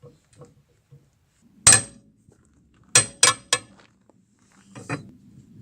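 Sharp metallic clanks of a steel tool against metal: one strike, then a quick run of three, then a fainter pair near the end, each with a short ring.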